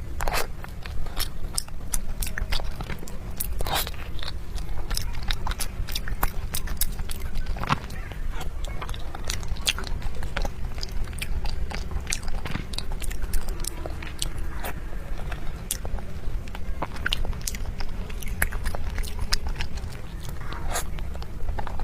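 A person biting and chewing food close to the microphone, with many short, sharp, irregular mouth clicks and smacks.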